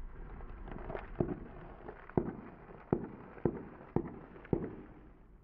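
Sealed Sabritas potato chip bags bursting one after another under a slowly rolling car tyre: six sharp pops, starting about a second in, with a faint crackling crunch between them and a low hum underneath.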